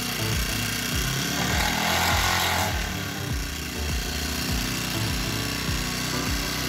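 Honda GX35 four-stroke grass-cutter (brushcutter) engine running just after a carburettor replacement, showing that it now starts. It gets briefly louder about two seconds in.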